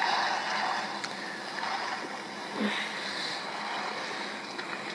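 Steady water ambience, an even wash like waves or flowing water, with a brief low sound about two and a half seconds in.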